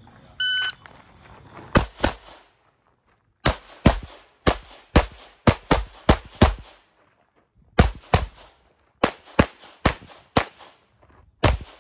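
A shot timer's start beep, a short high tone, then a competitor's pistol firing rapid shots, mostly in quick pairs, in four strings separated by pauses of about a second while moving between target arrays.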